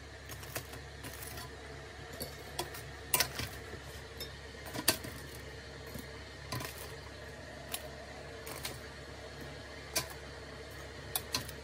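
Metal tongs clicking and tapping against an air fryer basket while slices of toasted garlic bread are picked out: a dozen or so sharp, irregular clicks over a low steady hum.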